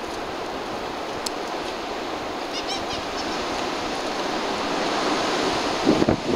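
Steady rushing outdoor noise, with a short run of faint, high chirps about two and a half seconds in and a few dull thumps near the end.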